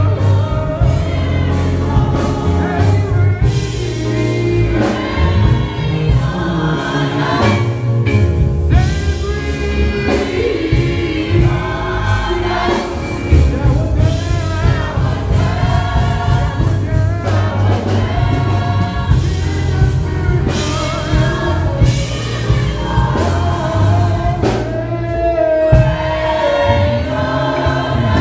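Gospel choir singing with a male lead vocalist, backed by a live band with electric guitars, a heavy bass line and a steady beat.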